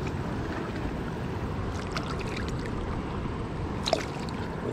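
Steady rush of flowing spillway water, with a sharp splash about four seconds in as a hand grabs at a small hooked catfish at the surface.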